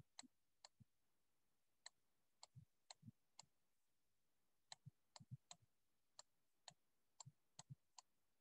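About twenty faint, irregular clicks and taps of a stylus on a tablet screen during handwriting.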